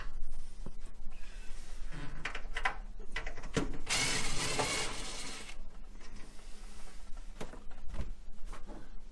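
Cordless drill/driver spinning out screws from the sheet-metal front cover of a tankless water heater, with a run of whirring about four seconds in that lasts a couple of seconds. Scattered clicks and knocks from handling the driver and the cover.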